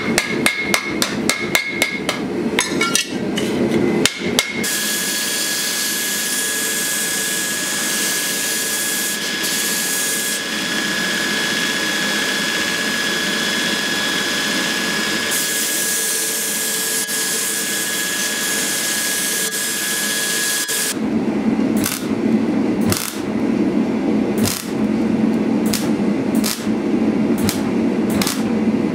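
A quick run of hammer blows on a steel piece on an anvil. Then a belt grinder runs steadily with a hiss and a thin whine as metal is ground against the belt. Near the end it gives way to a welding arc crackling in a series of short spurts.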